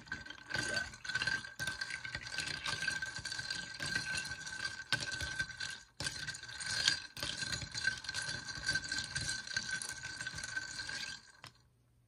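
Ice cubes clinking and rattling against the sides of a glass mug of iced coffee and milk as a spoon stirs them through the liquid, with a faint steady ringing note throughout; a brief pause around the middle, and it stops abruptly near the end.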